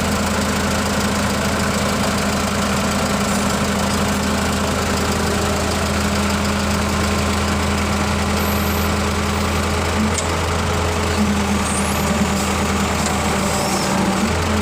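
Engine idling steadily with an unchanging low hum.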